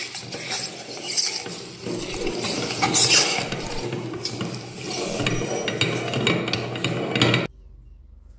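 Hand-cranked metal meat grinder grinding chunks of polystyrene foam, a dense, continuous crunching with many small clicks as the foam is forced through. The grinding cuts off suddenly near the end.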